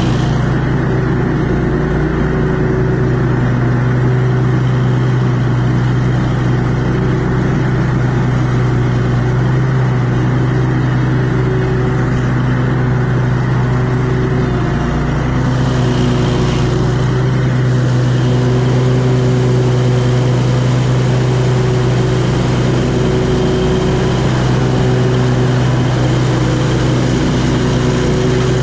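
Commercial riding mower's engine running steadily under load while cutting grass, with its blades spinning.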